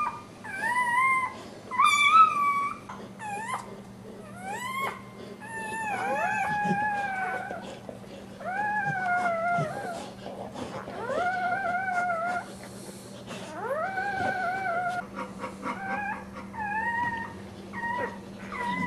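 Newborn pit bull (American Staffordshire Terrier) puppy crying: a string of high-pitched squealing cries, short and quick at first, then longer drawn-out ones every second or two, each rising and then holding or falling.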